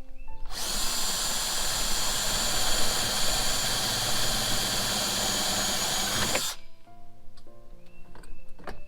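Power drill with a 5/16-inch bit boring a hole through a plastic panel, running steadily for about six seconds and then stopping.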